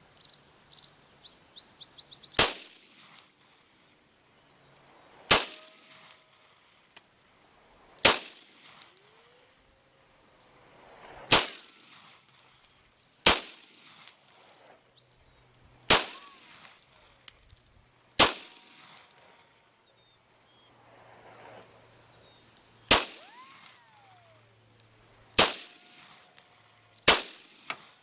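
Glock Model 40 10mm pistol fired slow, ten single shots about two to three seconds apart, several followed by a brief ringing.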